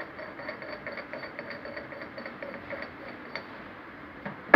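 Light metal ticking, about four to five clicks a second, as the steel front nut of a self-centering cross head is turned by hand, then one sharp metal knock near the end.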